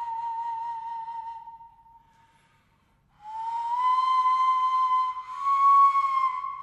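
Māori taonga pūoro flute playing long, high held notes: one note fades away about two seconds in, then after a short silence a new note slides up into place and is held, rising a step briefly near the end.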